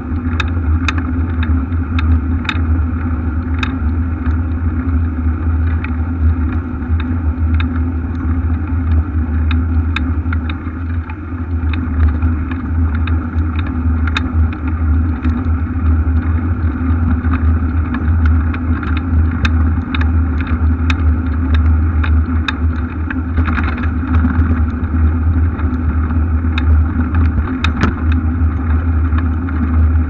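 Steady low rumble and hiss of a bicycle-mounted camera riding over brick paving, with wind on the microphone and many short sharp ticks and rattles from the bike and mount over the bricks.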